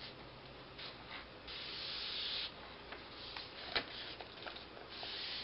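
Paper rustling and rubbing as hands handle and press a folded paper airplane wing, with a brighter hiss of paper sliding for about a second early on and a sharp click a little past halfway.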